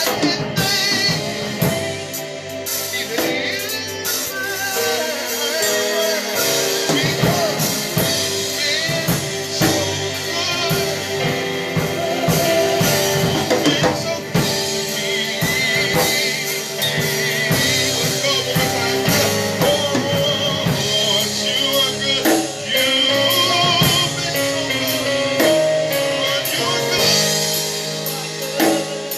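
Gospel worship music with singing, a drum kit and other instruments playing.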